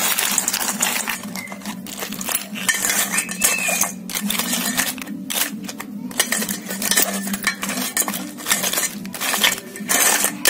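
Raw blue swimmer crabs and wooden chopsticks clattering against a stainless steel bowl as the crabs are tossed with seasonings: a dense, irregular run of clinks and knocks.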